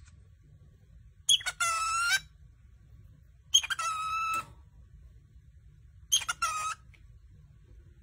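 Cockatiel giving three short calls, each a sharp start settling into a steady pitch, about two and a half seconds apart.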